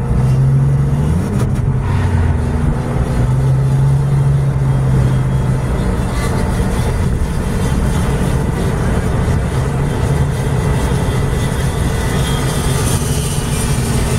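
Road and engine noise inside a moving car's cabin: a steady low hum over tyre noise, its pitch shifting slightly as the car paces along.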